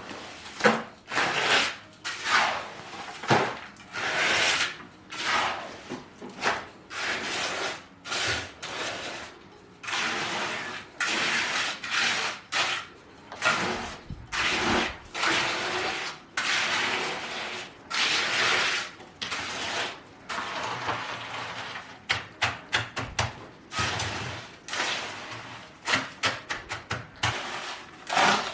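Hand building work on a cement kitchen counter: an irregular run of scraping strokes and knocks, many a second or less long, with no steady machine.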